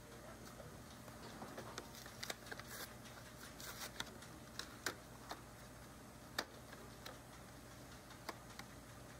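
Cardboard four-pack cartons of cans being handled on a steel roller conveyor: light, irregular clicks and knocks, the sharpest about six and a half seconds in, over a steady low hum from the packaging line.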